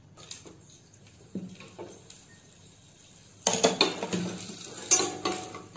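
Chopped almonds tipped into hot ghee in a small stainless-steel pan about three and a half seconds in. A spoon then clinks and scrapes against the pan as they are stirred to fry. Before that there are only a few faint clinks.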